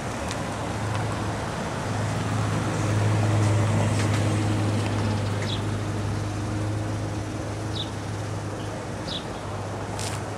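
Street traffic: a vehicle engine running steadily nearby, swelling a couple of seconds in and easing off, with a few short high chirps and a click near the end.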